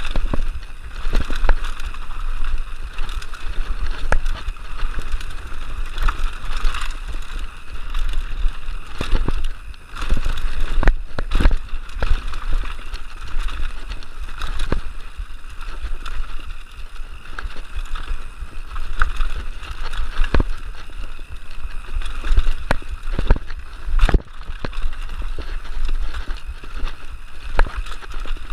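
Mountain bike riding down a bumpy dirt trail: a steady rush of wind on the microphone and tyre noise, with frequent sharp knocks and rattles from the bike over roots and bumps.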